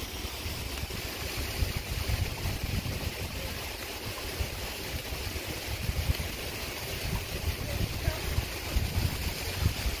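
Steady rushing outdoor noise with a gusty low rumble of wind buffeting the microphone.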